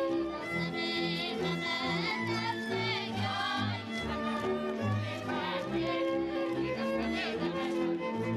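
Folk dance music led by fiddle, with bowed strings over a steady bass beat.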